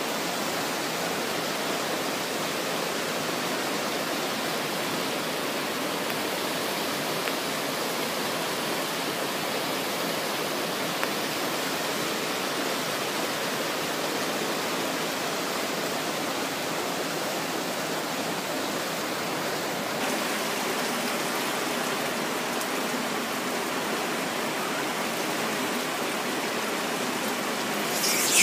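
Steady rush of river rapids and a waterfall. Near the end, a sudden brief burst of sharp high-pitched sound.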